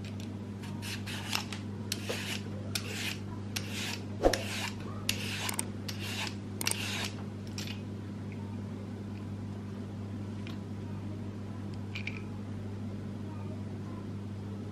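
Vegetable peeler scraping thin strips off a raw sweet potato: about a dozen quick strokes over the first seven seconds, then only a couple of faint taps. A steady low hum runs underneath.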